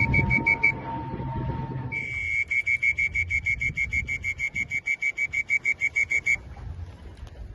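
A high whistle-like tone beeping in rapid, even pulses, about seven a second. It starts about two seconds in and stops shortly before the end. A low rumble under a steady lower tone fades out about two seconds in.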